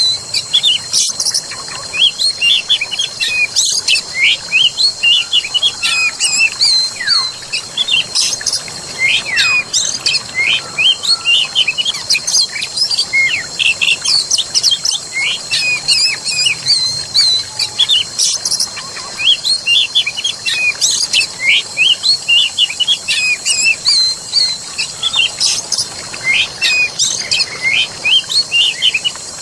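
Forest soundscape: many small birds chirping in quick, overlapping calls throughout, over a steady high hiss and running water.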